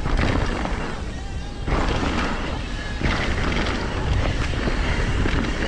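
Mountain bike descending a snowy trail at speed: wind buffeting the camera microphone over the rumble and rattle of the bike on the rough ground, with sudden jolts about two and three seconds in.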